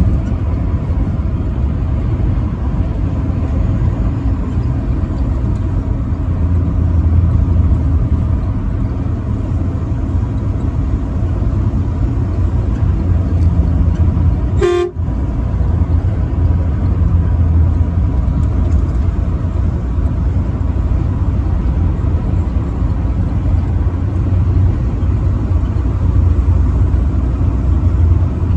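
Vehicle driving on the interstate: a steady low rumble of road and engine noise with faint steady tones above it. About fifteen seconds in, the sound drops out briefly around a short pitched blip.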